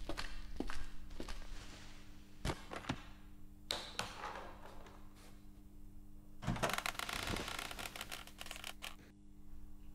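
Footsteps on a hard floor, then a few heavier knocks, then a metal cabinet door being opened with about two seconds of clattering rattle, over a steady electrical hum.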